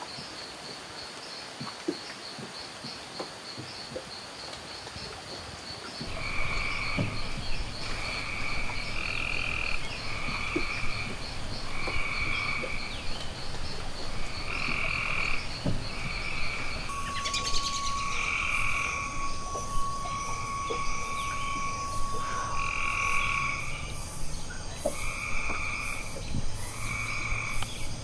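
A frog chorus of short calls repeating about once a second, each call a two-pitched note. The calls start about six seconds in, over a steady high pulsing trill. A long, steady whistle-like tone runs for several seconds past the middle.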